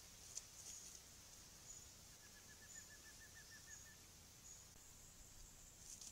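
A faint bird call: a quick run of about a dozen short, evenly spaced notes, each rising slightly, lasting under two seconds. It sounds over a thin high hiss, with a couple of soft ticks at the start and near the end.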